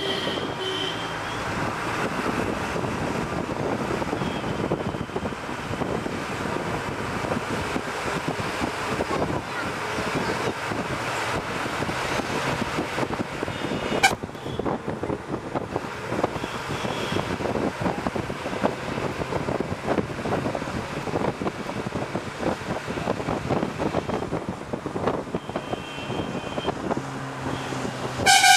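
Bus travelling along a road, heard from inside: steady engine and road noise with a rattle. A sharp knock comes about halfway, and short horn toots sound near the start and near the end, the last the loudest.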